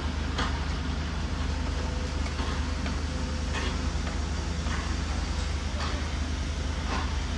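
Construction-site machinery running: a steady low diesel engine drone, with a few short metallic knocks spaced irregularly through it.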